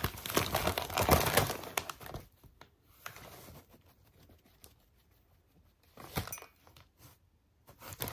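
Brown kraft packing paper crinkling and rustling as a cat rolls on it and pushes into it. The rustling is loudest for the first two seconds, then dies to faint rustles, with short bursts again around six seconds and near the end.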